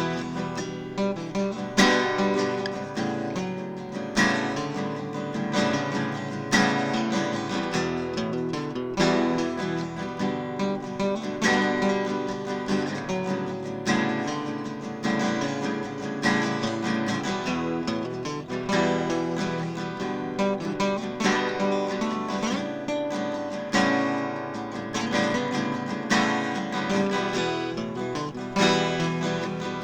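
Background music: acoustic guitar strumming and picking, with a strong strum about every two and a half seconds.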